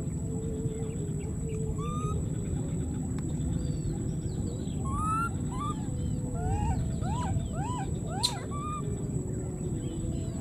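Baby monkey squeaking: a run of short, arching squeaks, mostly in the second half and coming about two a second near the end, over steady background noise.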